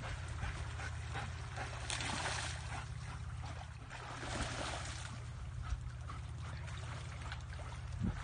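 Water splashing and swishing as a dog wades and swims through a muddy creek, in uneven surges, over a steady low hum.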